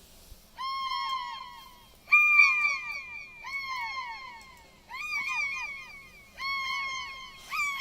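Fake bird calls made in the studio: a recording played reversed, pitch-shifted up an octave and run through an MXR analog delay. Chirps with falling pitch come in clusters about every second and a half, and each call repeats several times as delay echoes fading away.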